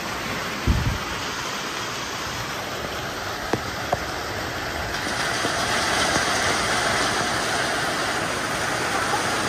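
Heavy rain pouring steadily onto a concrete rooftop and plastic tarps, a dense hiss that grows louder about five seconds in. A low thump comes near the start and two sharp knocks follow a few seconds later.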